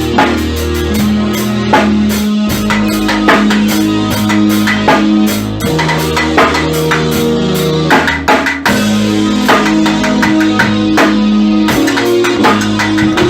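Instrumental music: a drum kit keeping a steady beat under guitar and held low notes that change every few seconds.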